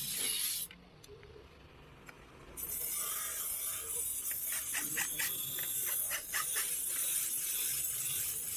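Hand metalwork on a sickle blade: a steady hiss with irregular scraping and light clicks, cut off abruptly to much quieter from about one to two and a half seconds in, then resuming.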